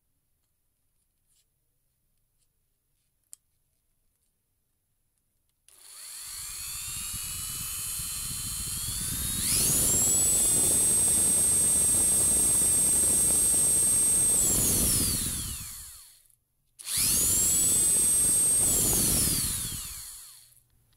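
Dremel rotary tool spinning a round workpiece mounted on a shaft in its chuck. The motor starts about a third of the way in, runs at a lower speed, then climbs to a steady high whine and winds down; near the end it spins up once more and winds down again.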